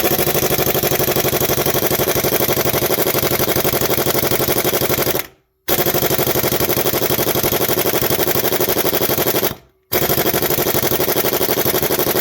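Harbor Freight 1/2-inch drive air impact wrench hammering rapidly on a crankshaft bolt at its highest setting, in three long bursts with short breaks about five and a half and nine and a half seconds in. The bolt is not budging: with the compressor at 90 psi there is not enough power to break it loose.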